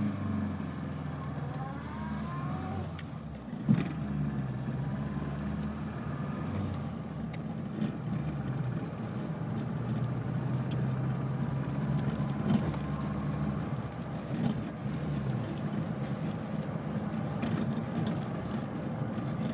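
A classic Mini's engine and road noise heard from inside the cabin while driving, with the engine pitch rising in the first few seconds. There is a single thump about four seconds in.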